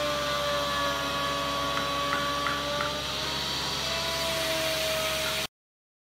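An electric power tool's motor running steadily with a whine that sags a little in pitch and then recovers, cutting off suddenly about five and a half seconds in.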